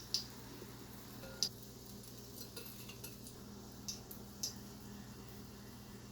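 Cooking utensil clinking against a frying pan, about five short light clinks spread over a few seconds, over a low steady hum.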